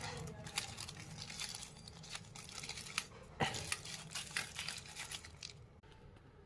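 Packaging being crinkled and torn open by hand: a dense run of crackles and sharp rips that stops about five and a half seconds in.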